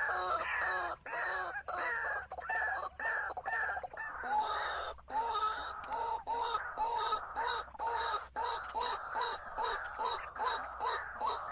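An animal calling over and over: a steady series of short, arched calls, about two or three a second.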